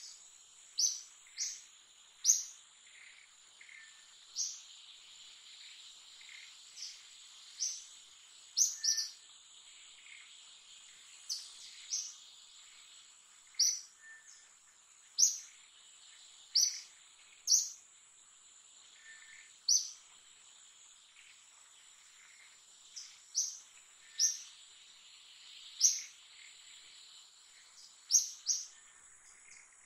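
Short, sharp bird chirps, one every second or two at irregular intervals, over a steady high-pitched insect drone.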